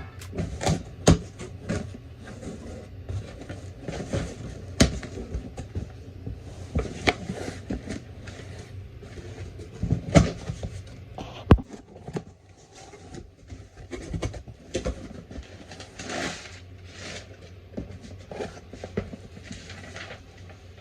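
Cardboard packaging of a Lego set being handled and opened: irregular knocks, clicks, scrapes and rustles over a steady low hum.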